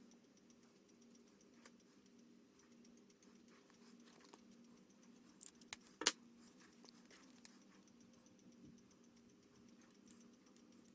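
Quiet handling of art supplies on a table: scattered light taps and clicks, with a quick run of sharper clicks about five and a half seconds in, the loudest around six seconds. A faint steady hum sits underneath.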